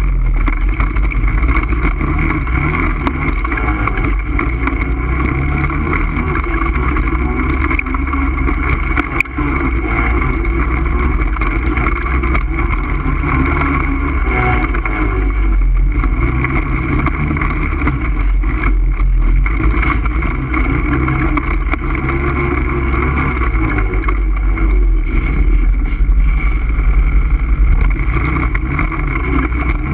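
ATV engine running steadily under way, its pitch rising and falling only a little, over a heavy low rumble.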